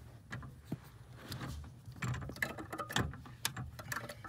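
Irregular small plastic clicks and scratching as a new brake light switch is handled and pushed into its bracket at the brake pedal.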